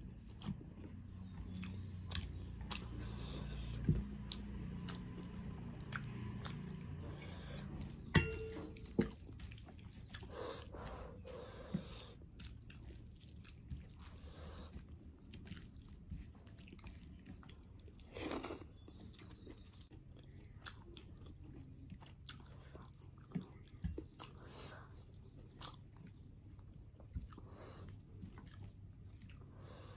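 Chewing and lip smacks of a person eating rice and fish curry by hand, with scattered short clicks over a low background hum; the loudest click comes about eight seconds in.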